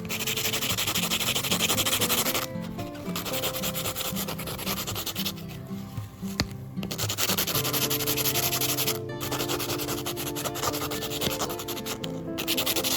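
Rough abrasive sanding in stretches of two to three seconds with short pauses between, over background music.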